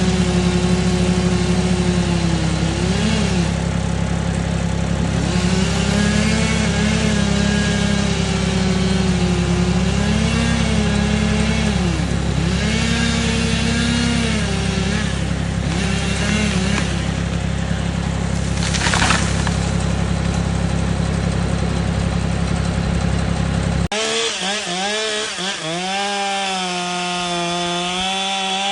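Two-stroke chainsaw cutting wood, its engine pitch dipping and recovering again and again as the chain bogs under load in the cut. About two-thirds through there is a brief loud noise, and near the end the sound changes abruptly, the saw still running but with less low rumble.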